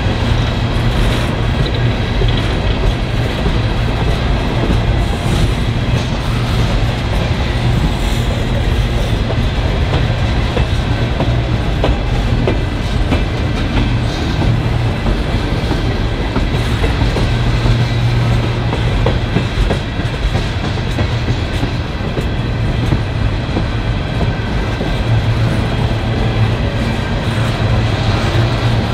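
Norfolk Southern coal train's hopper cars rolling past, steel wheels running on the rails with a steady, continuous sound.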